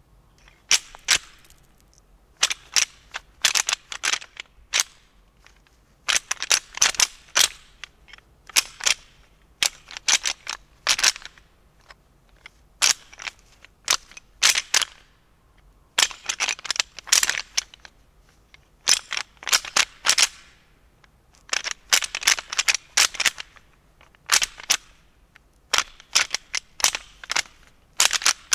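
Rattling call for whitetail deer: clusters of sharp clacks and rattles in bursts with short pauses between, the sound of two bucks sparring, used to draw in a buck during the rut.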